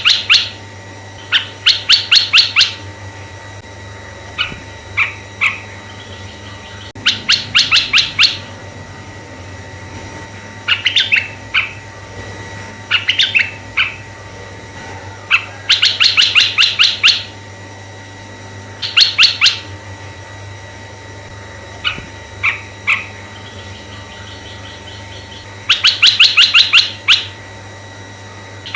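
Red-eyed bulbul singing: groups of quick, high, repeated notes about a second long, coming every two to three seconds, with shorter clusters of two or three notes in between.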